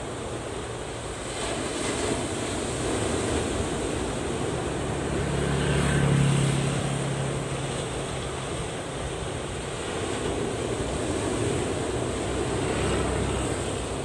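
Ocean surf breaking and washing up a sandy beach, a steady rushing noise that swells and eases with each set of waves. A low hum swells and fades about six seconds in.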